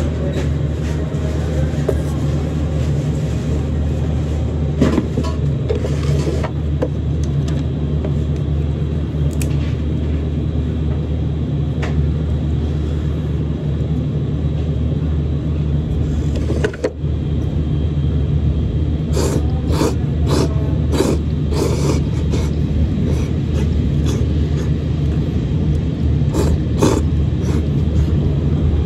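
A steady low rumbling hum, with a cluster of short, sharp clicking and slurping sounds in the second half as noodles are eaten from a bowl with chopsticks.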